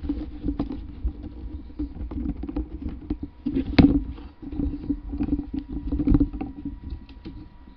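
Handling noise from a camera being picked up and repositioned: irregular taps, knocks and rubbing on its microphone, with one louder knock a little under four seconds in.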